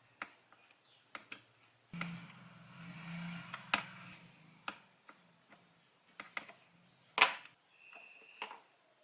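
Scattered clicks and taps of small hard parts and tools being handled, the loudest a sharp knock about seven seconds in, with a low hum for about two seconds starting two seconds in.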